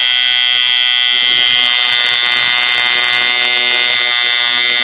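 Tattoo machine buzzing steadily as its needle works on the inside of a lower lip, one loud unbroken electric buzz.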